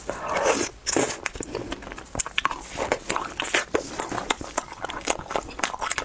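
Biting into a soft candy and chewing it close to the microphone, heard as a dense run of small wet clicks and crackles, busiest in the first second.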